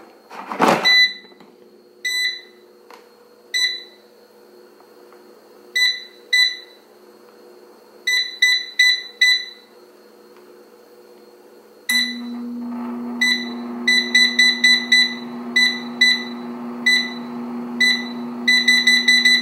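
Gourmia digital air fryer beeping at each press of its touch controls, single beeps and quick runs, as the temperature and timer are set, after a clunk as the basket slides in. About 12 seconds in, its fan starts with a steady hum under the beeps as cooking begins.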